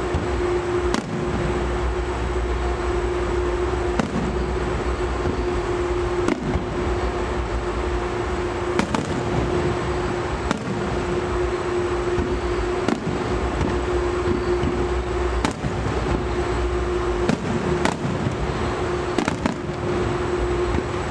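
Aerial fireworks bursting, about ten sharp bangs spaced every second or two, over a steady hum and low rumble.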